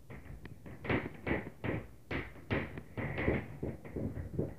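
Repeated banging on the ceiling from the apartment upstairs: a run of knocks, about two to three a second, unevenly spaced.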